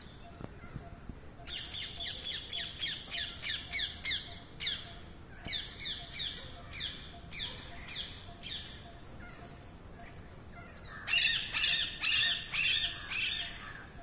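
Rose-ringed parakeets screeching: runs of high-pitched calls, each note falling in pitch, at first about four a second and then slowing. A pause of a couple of seconds comes before a second loud bout near the end.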